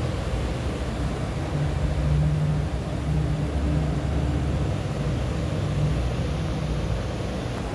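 Steady background hum and hiss, the low hum swelling and fading a little.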